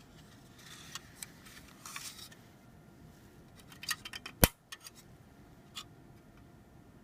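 CPU, mounting bracket and heatsink being handled and fitted together: light scraping, then a quick run of small clicks with one sharp click about four seconds in, and a last click near the end.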